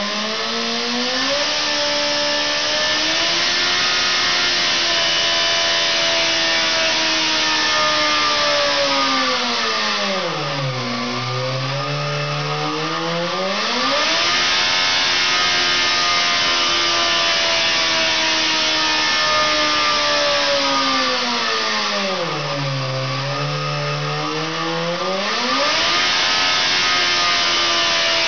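Car engine running on a dynamometer test bed, its speed rising at the start and then held high. It drops off and picks back up twice, about ten seconds in and again about twenty-two seconds in.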